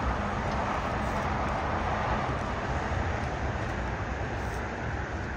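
Steady rumble and hiss of jet airliner engines across an airport, easing slightly toward the end.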